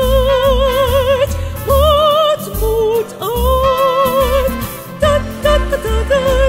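Background music: long held notes wavering in wide vibrato over a pulsing bass line.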